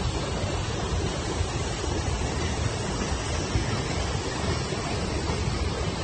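Steady rushing noise of the Ban Gioc waterfall, mixed with uneven low buffeting of wind on the phone's microphone.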